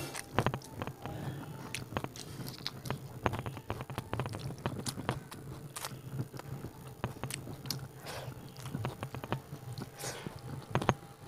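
Close-miked eating: chewing with many short wet mouth clicks and smacks, and fingers working curry-soaked rice against a plate.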